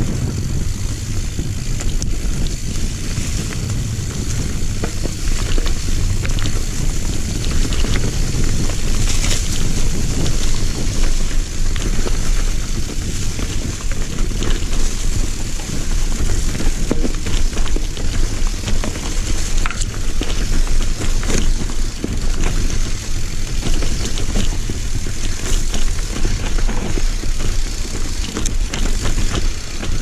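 Mountain bike descending a rough dirt singletrack: tyres running over dirt and dry leaves and the bike rattling and knocking over bumps, under a steady low rumble.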